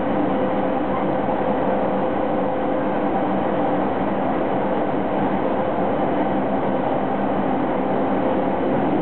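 JR East 209 series electric commuter train running at steady speed, heard inside the carriage: an even rumble of wheels and running gear with a faint steady tone.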